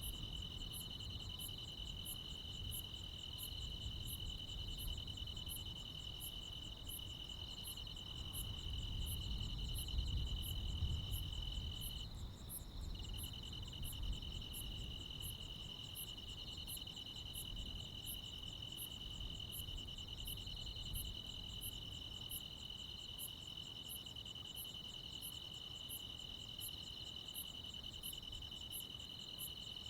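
Crickets and other insects chirring on a summer night: a steady high trill that breaks off for about a second near the middle, with another insect ticking at a very high pitch about one and a half times a second. A low rumble sits underneath, swelling briefly about a third of the way in.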